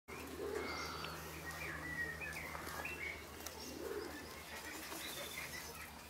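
Several small birds chirping and twittering in short, quick notes, with a lower call twice, over a steady low hum.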